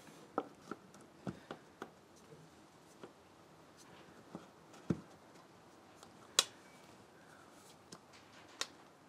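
Scattered light clicks and taps of a plastic air-cleaner cap being turned and pushed onto the air filter housing of a Kubota B2601 tractor by hand, with a duller knock about five seconds in and a sharper click about a second and a half later.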